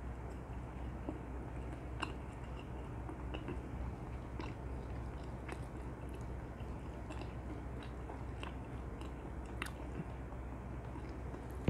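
Close-miked chewing of sticky, sauce-glazed Korean fried chicken (dakgangjeong), with scattered wet mouth clicks over a steady low hum.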